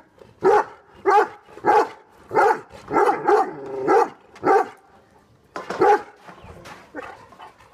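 Great Dane and Rottweiler barking angrily: a quick run of about seven loud barks roughly every half second, a short pause, then a few more barks, some of them fainter.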